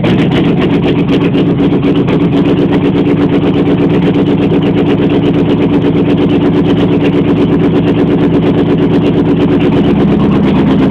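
1989 Jeep Grand Wagoneer's AMC 360 V8 idling steadily just after a cold start, heard from inside the cab. It is really loud, with a fast, even pulsing, because the driver's-side exhaust manifold is off and that bank exhausts straight out of the open head ports.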